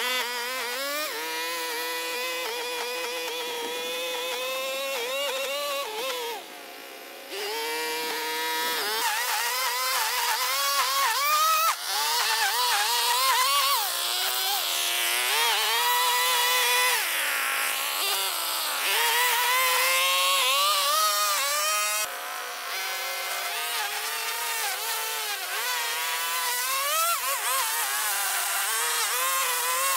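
Gas string trimmer's small two-stroke engine running and cutting grass, its pitch rising and falling as the throttle is squeezed and eased, with a brief drop about six seconds in.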